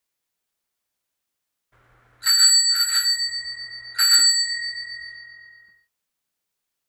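Bicycle bell rung three times: a quick double ring, then a single ring about a second later, the chime fading away.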